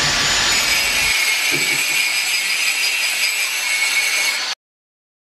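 Angle grinder with a cut-off disc cutting through a metal tube: a steady high whine over a grinding hiss. It cuts off suddenly about four and a half seconds in.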